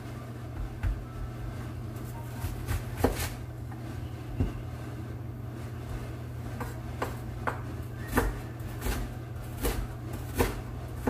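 Kitchen knife slicing an onion on a wooden cutting board: about a dozen sharp knocks of the blade on the board at irregular intervals, with pauses between cuts.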